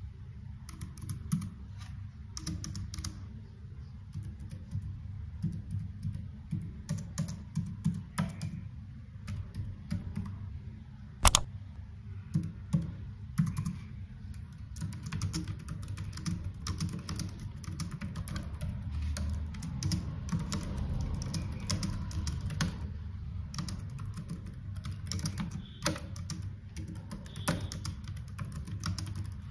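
Typing on a Logitech K380 wireless keyboard: quick, irregular runs of key clicks, with one much sharper, louder click about eleven seconds in.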